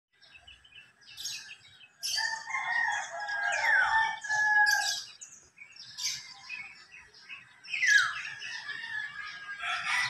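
Small birds chirping in the trees, with a rooster crowing once for about three seconds, starting about two seconds in.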